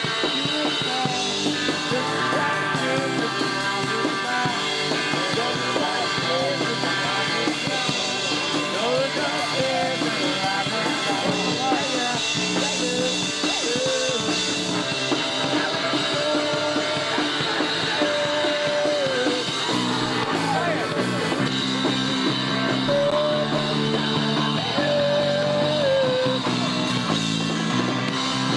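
A punk rock band playing live: distorted electric guitar, bass and drum kit, with shouted singing over it, heard through a camcorder microphone.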